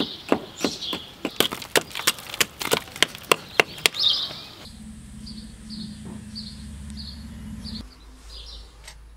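Rapid hand-hammer blows, three to four a second, struck at the mortar and stone along the base of a slate rubble wall, with a bird chirping repeatedly. A little over four seconds in, the hammering stops and a low steady hum takes over while the chirping goes on.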